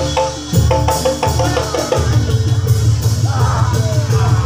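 Javanese gamelan music for a jathilan horse trance dance: repeated drum strokes and ringing metal percussion over a steady low tone.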